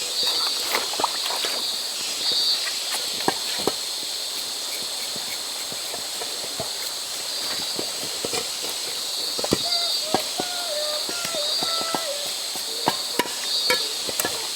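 Outdoor nature ambience: a steady hiss, insects trilling in repeated pulses, and many scattered sharp crackles. Faint voices wander in and out in the background.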